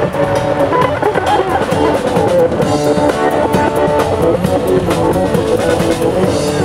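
Music with a drum kit and electric guitar, held guitar notes over a steady drum beat.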